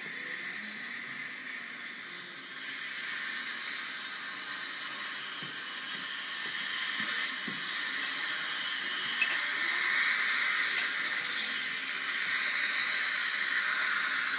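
Steady high hiss of dental equipment working in a child's mouth: the air-driven handpiece and suction. It grows slightly louder, with a couple of faint clicks about two-thirds of the way in.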